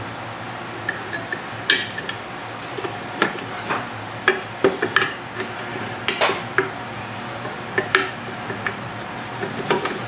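Adjustable wrench and pliers clinking and clanking against a nut and bolt on a Wheel Horse garden tractor's steel bracket: irregular sharp metal clicks and taps, several louder clanks among them.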